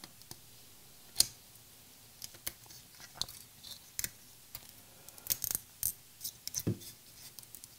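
PLA support material on a 3D print snapping and crackling as it is broken and peeled off by hand: scattered short sharp clicks, one loud snap about a second in and a quick cluster of clicks around five to six seconds.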